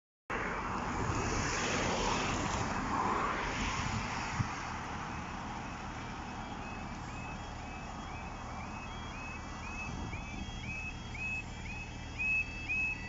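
Road traffic passing the crossing at first, then the level crossing's warbling yodel alarm, about three rising-and-falling yelps a second, growing much louder near the end as the barriers start to come down for a train.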